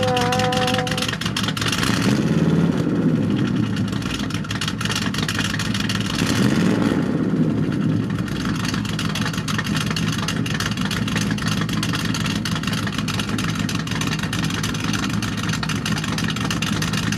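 Straight-piped Buick engine running and revved twice, about two seconds in and again around six to seven seconds, then settling back to a steady run. The party blowers stuffed into the tailpipe flutter but never go off.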